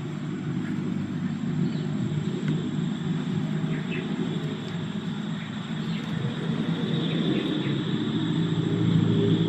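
A steady low hum of a running engine or motor, getting a little louder near the end, with a few faint short high chirps above it.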